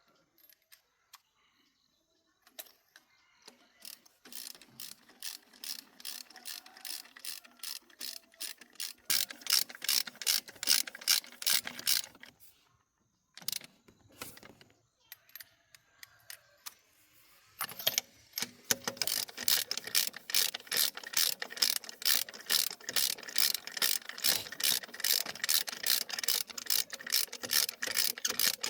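Ratchet wrench clicking steadily as it is worked back and forth on a fastener, about four clicks a second, in two long runs with a pause between them.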